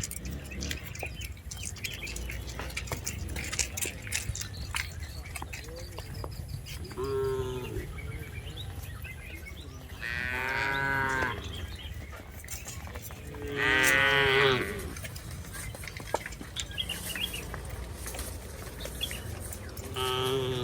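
Cattle mooing. There is a short call about seven seconds in, then two long calls about ten and fourteen seconds in, the second of them the loudest, and another begins near the end.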